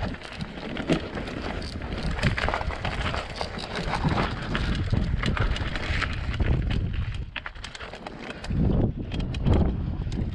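Mountain bike riding over loose rocky ground: tyres crunching on gravel and stones, the bike rattling with many sharp clicks, and wind buffeting the microphone. It eases off briefly about three-quarters of the way through, then the wind rumble rises again.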